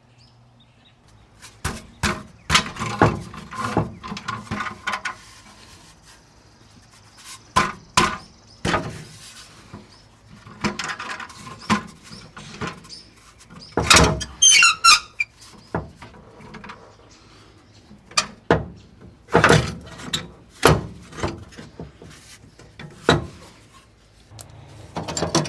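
Irregular metal knocks, clanks and scrapes as the old exhaust muffler and its hanger brackets under a 1988 VW Vanagon are worked loose by hand, with a brief wavering squeal about halfway through.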